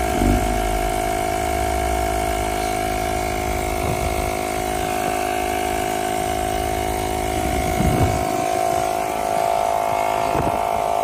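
Portable tyre-repair kit compressor running steadily with an even mechanical hum, pumping air into a punctured car tyre that is slowly filling.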